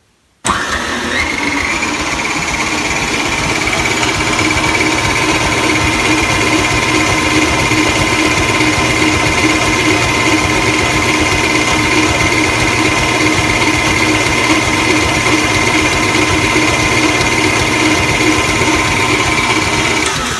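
Electric mixer switched on to medium speed and running steadily while beating cake batter, its motor whining with a slight rise in pitch as it comes up to speed just after it starts.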